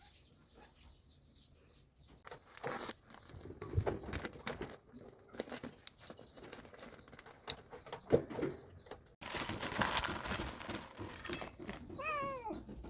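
Dry cat food being handled and poured into a bowl: scattered clatter, then a dense rattle of kibble for about two seconds just past the middle. A cat gives a short meow near the end.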